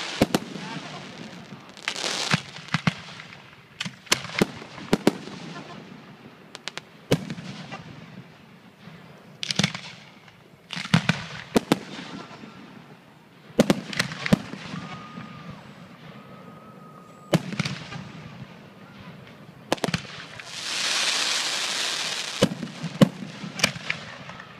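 Aerial fireworks shells bursting in a display: dozens of sharp bangs at irregular intervals, often several in quick succession, with hissing and crackling between them and a longer, louder hiss about three quarters of the way through.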